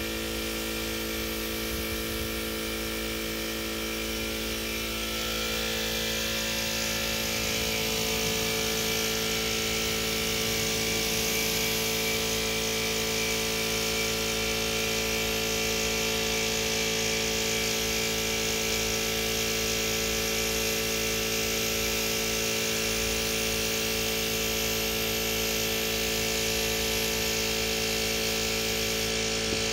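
Gravity-feed paint spray gun hissing steadily as it sprays single-stage paint, over the steady hum of a motor. The hiss grows louder about five seconds in and holds.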